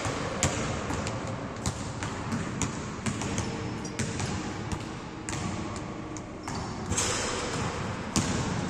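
Basketballs bouncing on a hard indoor court, sharp irregular thuds echoing around a large hall.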